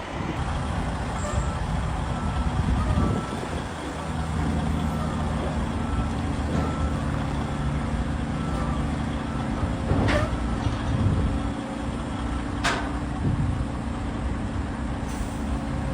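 Diesel engine of a large Hitachi mining excavator running steadily under load as the machine moves, a deep drone. A faint intermittent beeping sounds in the first half, and there are two sharp clicks or knocks near the end.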